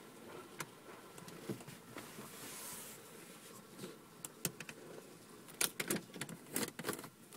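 Scattered clicks and clunks of the Nissan 350Z's automatic gear lever being handled and moved in its gate, with a quick cluster of sharper clicks about five and a half seconds in and more near the end.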